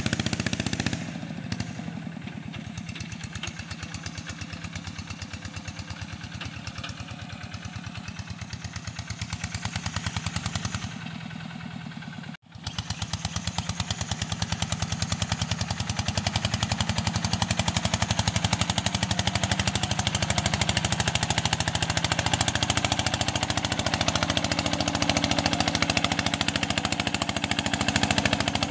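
Single-cylinder diesel engine of a walking tractor running under load as it pulls a disc plough through soil, with a loud, fast, even exhaust beat. It sounds more distant at first and is louder and closer from about halfway through.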